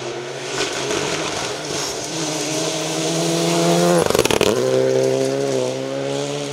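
Renault Clio Rally3 rally car at full throttle on a gravel stage. Its engine note climbs as it approaches, drops sharply as it passes close by about four seconds in, then climbs again as it pulls away, over a hiss of loose gravel from the tyres.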